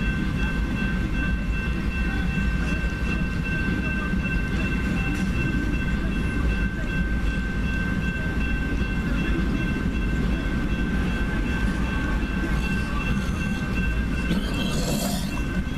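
Double-stack container train's well cars rolling past at a grade crossing: a steady low rumble of wheels on rail with steady high tones over it and a short hiss near the end.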